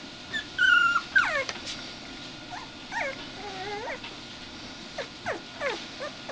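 26-day-old American Eskimo puppies yipping and whining as they play-wrestle. A held high whine about half a second in, then a sharp falling yelp just after a second, the loudest call. Short yips and whines follow through the rest.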